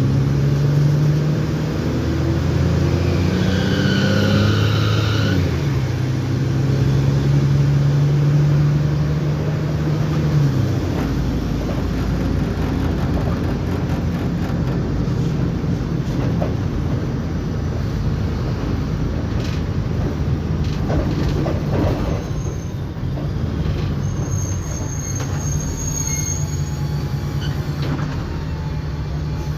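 Mercedes-Benz O-500M bus with Voith automatic gearbox under way. The engine note rises in pitch over the first few seconds with a whine above it, then holds steady. About ten seconds in it drops away to a lower, rougher rumble as the bus rolls on. A brief high squeal sounds past the middle.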